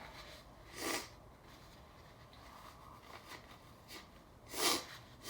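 A man's short, sharp, noisy breaths through the nose and mouth, once about a second in and twice near the end, during a sneezing fit set off by snorting Chhinkni sneezing powder.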